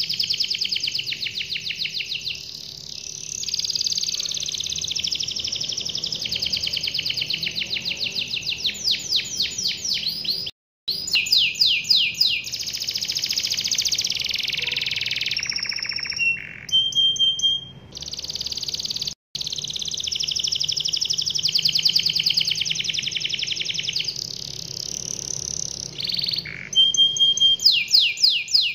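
A yellow domestic canary singing a long, near-continuous song of fast rolling trills with a few clear whistled notes, broken twice by brief silences.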